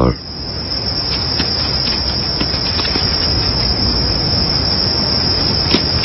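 Crickets trilling in one steady high note, over a low, even rumble.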